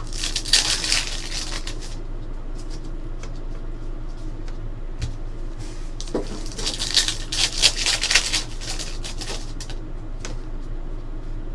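Trading cards and pack wrappers being handled: two bursts of papery rustling and crinkling, one at the start and one about six seconds in, over a steady low hum.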